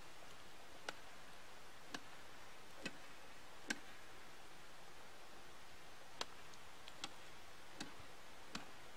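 A pole striking early pond ice in sharp, short knocks, about one a second and unevenly spaced, as the ice is tested for thickness before going out on it.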